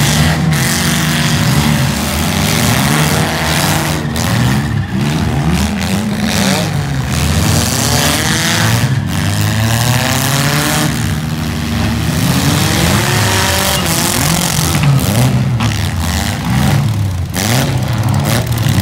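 Several four-cylinder demolition derby cars revving hard at the same time, their engine notes rising and falling over one another.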